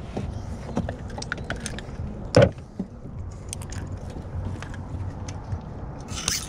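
Clicks and rattles of a baitcasting rod and gear being handled in a plastic kayak as a small hooked bass is swung aboard, with one louder knock about two and a half seconds in and some scraping near the end.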